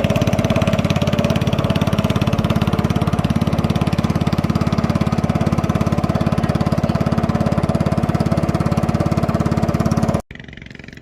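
Engine running steadily and loudly with a fast, even pulse, cut off abruptly about ten seconds in.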